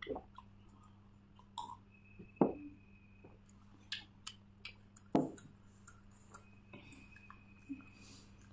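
Quiet eating sounds: soft chewing with small wet mouth clicks, and three louder short sounds, just after the start, about two and a half seconds in and about five seconds in. A steady low hum runs underneath.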